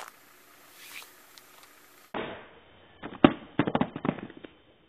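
Phone in a Ballistic rugged case clattering to rest on asphalt after a waist-height drop, with a last sharp knock at the start. About three seconds in comes a quick run of sharp clicks and knocks.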